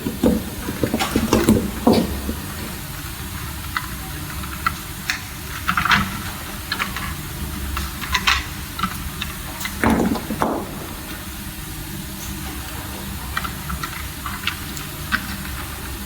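Irregular small clicks, scrapes and rustles of hand wiring work, with a louder handling clatter near the start and again about ten seconds in: wires being fitted into the terminals of DIN-rail circuit breakers. A steady low hum runs underneath.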